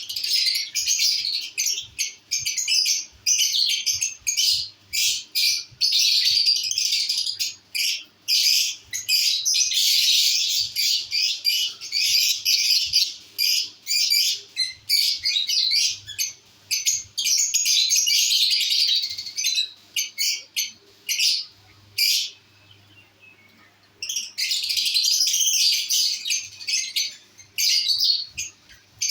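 Lovebirds chirping: a dense, rapid stream of high chirps, several birds at once, with a pause of about two seconds about three-quarters of the way through.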